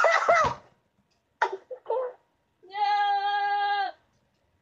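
A person's voice: a short vocalisation that slides in pitch, two brief breathy sounds, then a single note held on one steady pitch for just over a second, sung or hummed.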